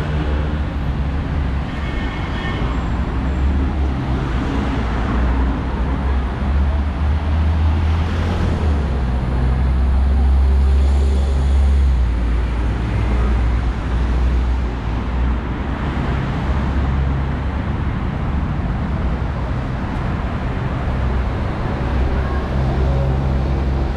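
City street traffic: motor vehicles running close by, with a steady low engine rumble that is heaviest in the first half.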